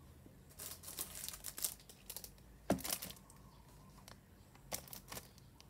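Clear plastic wrapping on a boxed phone case crinkling as the package is handled. A light knock comes about halfway through as the package is set down, followed by a little more crinkling and a few soft clicks near the end.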